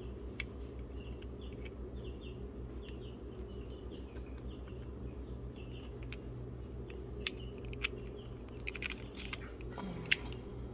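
A few sharp ticks and small clicks of steel chainsaw parts being handled: loose needle bearings and a Stihl 021 crankshaft and connecting rod being fitted by hand. A steady low hum runs underneath.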